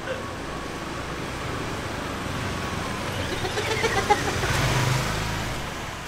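Two motorbikes ride past close by, their engine sound building to a peak about four to five seconds in and then fading as they go by.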